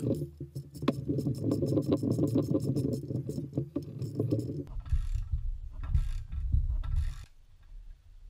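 Ratchet wrench clicking quickly and steadily as it is worked on the threaded rod of a cup-type bushing press, pressing a rubber bushing into a BMW E39 aluminium rear wishbone. After about four and a half seconds the clicking gives way to a few heavier knocks, then it goes quieter near the end.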